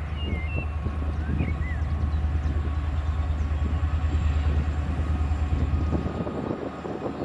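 Train locomotive running with a deep, steady drone that fades about six seconds in. A few bird chirps sound in the first two seconds.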